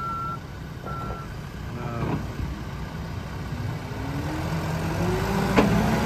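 A Case 580 Super N backhoe's reverse alarm beeps twice at the start, then stops, over the steady running of its diesel engine. From about four seconds in, the engine note rises and grows louder as the machine drives forward.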